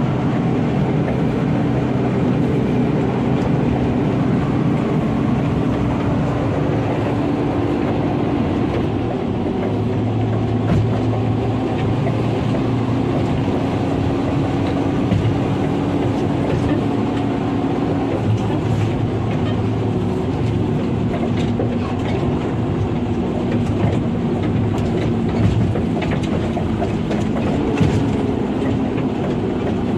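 Mining dump truck's diesel engine running steadily, heard from inside the cab, with a constant rumble and rattling of the cab and body over a rough haul road. The engine's pitch shifts a few times as it changes speed.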